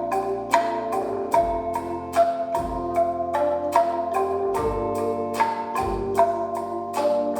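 Calung renteng, a row of tuned bamboo slats tied on a cord, struck with mallets in a steady repeating pattern of ringing notes, several strikes a second, over a deep beat about once a second.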